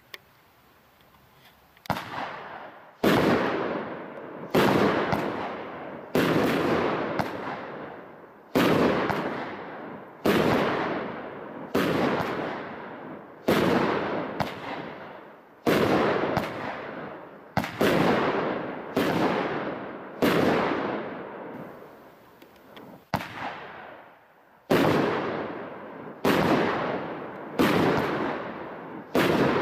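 Aerial fireworks from a Brothers Pyrotechnics Django kit going off in a long run of bangs after about two quiet seconds. Each is a sharp crack with a fading tail, and they come roughly one a second with a few brief gaps.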